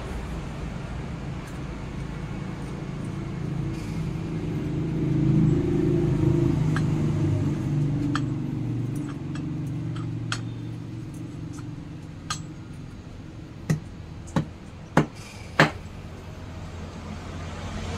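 Bajaj Platina telescopic front fork leg being worked by hand, giving a low, uneven churning noise that swells for a few seconds and then eases. Near the end come four sharp metal knocks, evenly spaced about half a second apart.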